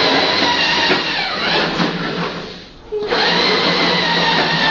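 Small electric motor of a battery-powered children's ride-on drift vehicle, whining steadily with a rough hiss under it. It drops away briefly about two and a half seconds in, then picks up again.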